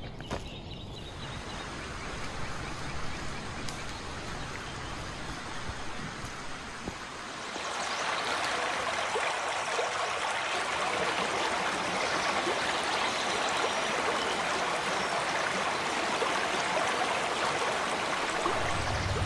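A shallow rocky forest stream rushing over stones, a steady wash of water that grows louder about seven seconds in.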